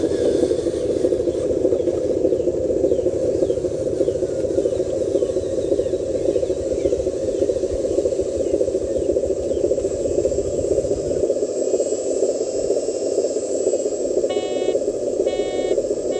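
Radio-controlled dump truck's drive motor and gearbox running steadily as it crawls loaded over sand mounds, with a deeper rumble that drops away about two-thirds of the way through. Three short beeps about a second apart near the end.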